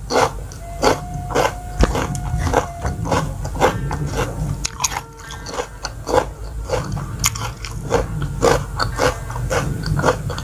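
A person chewing a mouthful of food close to the microphone: crisp crunching with each chew, about two a second.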